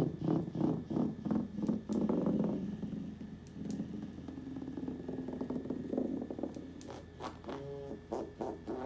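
Small motor of a rose-shaped suction vibrator running, pulsing about three times a second at first, settling into a steadier buzz in the middle, then pulsing again near the end.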